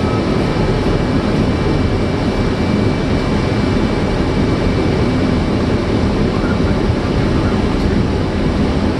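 Steady loud rumble of jet engines and airflow heard inside a Boeing 757-300 flight deck, with a faint thin steady high tone above it.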